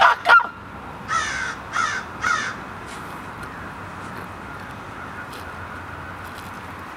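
A crow cawing three times in quick succession, starting about a second in, followed by steady outdoor background noise.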